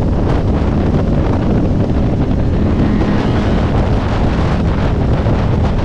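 Heavy, steady wind noise buffeting the microphone of a KTM motorcycle riding at motorway speed, with the bike's engine droning underneath.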